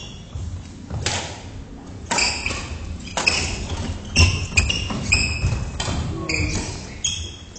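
Badminton rally: sharp strikes of rackets on the shuttlecock and thuds of footwork on a wooden gym floor, with short high squeaks of court shoes in between. The strikes are loudest about four seconds in.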